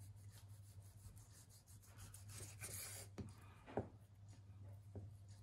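Kitchen knife sawing through raw beef tongue on a cutting board: faint repeated rubbing strokes, then a few light knocks of the blade on the board, the sharpest about halfway through.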